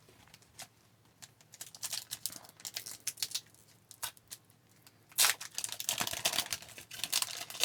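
Trading cards and a foil card pack being handled: crinkling and rustling with small sharp clicks of cards sliding and tapping against each other, busier from about five seconds in.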